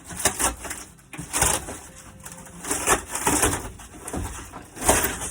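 A torn section of old RV roof being pulled and broken out by hand: a run of irregular crunching, cracking and scraping noises in several separate bursts.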